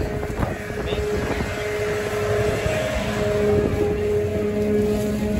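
Passenger boat's engine running under way, a steady hum of held tones with a lower tone joining about three seconds in, over a low rumble of wind and water.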